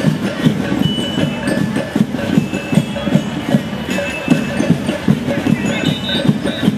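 Loud music with a fast, steady drum beat and high ringing tones over it.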